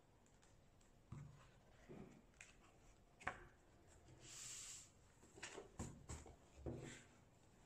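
Hands handling a stack of paper sheets on a desk: faint soft taps and knocks, one sharper click about three seconds in, and a brief rustle of paper sliding a little after four seconds.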